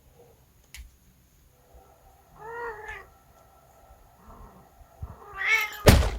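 Domestic cat meowing twice, a short meow about two and a half seconds in and a longer, louder one near the end, followed at once by a sharp thump.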